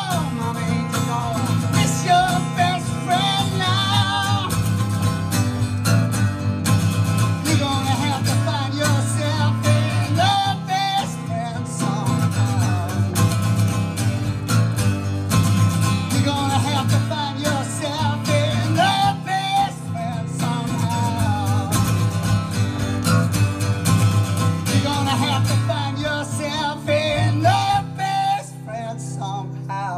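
Solo acoustic guitar strummed in a steady country-blues rhythm, with a man's voice singing over it at times. The playing eases off near the end.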